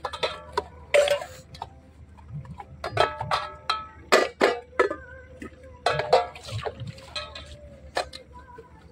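Stainless steel pots and bowls clanking against each other as they are washed by hand in a tub of water: a string of irregular sharp clinks, some of them ringing briefly.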